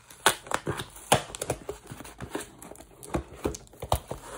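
Small cardboard mailer box handled and turned over by hand: irregular sharp taps, scrapes and crinkles of cardboard, a dozen or so, unevenly spaced.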